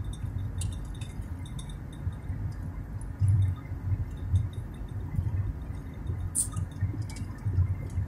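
Low, uneven rumble of a car driving along a paved highway, heard from inside the cabin, with scattered small clicks and rattles.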